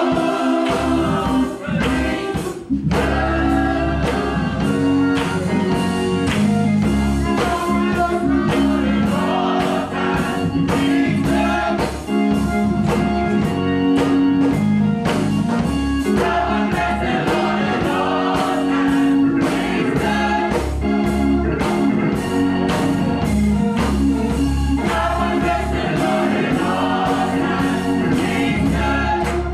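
Gospel church choir singing with band accompaniment: sustained bass notes under the voices and a steady beat.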